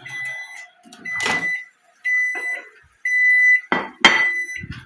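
Kitchen appliance beeping: five steady high-pitched beeps about half a second long, one each second, typical of a microwave or oven signalling it is done. Several sharp knocks and clatters of kitchenware come in between the beeps, the loudest near the end.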